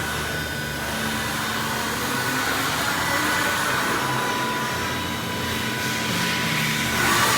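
EUMACH DVM 2021 vertical machining center running, a steady mechanical whir with several steady high tones. Another tone comes in about four seconds in and stops near the end.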